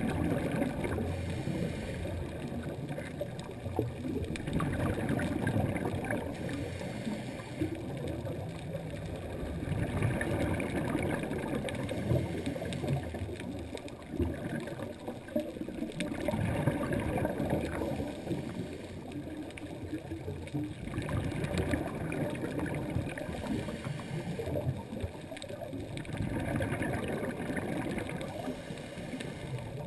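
Underwater sound heard through a camera housing: a muffled gurgling rumble that swells and fades every several seconds, typical of a scuba diver's regulator breathing and exhaled bubbles.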